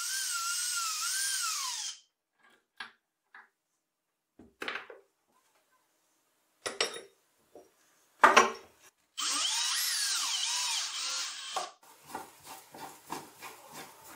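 Makita cordless drill running in two short bursts, its motor whine rising and falling in pitch with the trigger as it drives into a steel toggle clamp on an aluminum bracket. Between the bursts, metal parts click and knock on the plywood bench, with one sharp knock the loudest sound, and near the end comes a quick run of light ticks.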